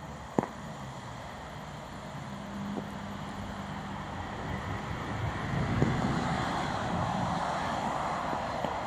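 Road traffic on a wet, slushy street: the hiss of tyres on the wet road, swelling about halfway through as a vehicle comes past.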